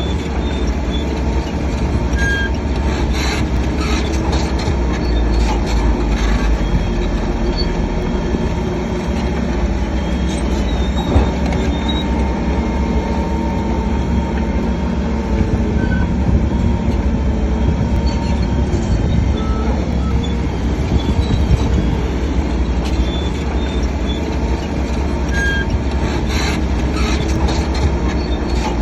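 Shantui crawler bulldozer at work: its diesel engine runs steadily under load while the steel tracks give scattered short squeaks and metallic clanks.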